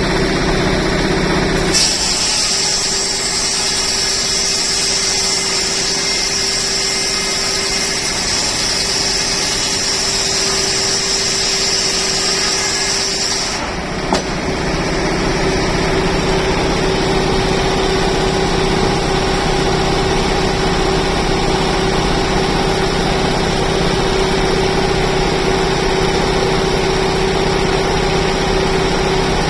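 Old sawmill machinery running steadily with a constant hum. About two seconds in, a higher-pitched sound joins it, and it cuts off abruptly about fourteen seconds in.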